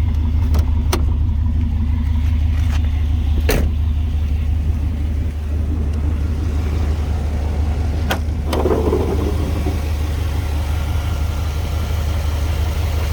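5.7 L Vortec V8 idling steadily, with a few sharp clicks and clunks as the hood is unlatched and raised.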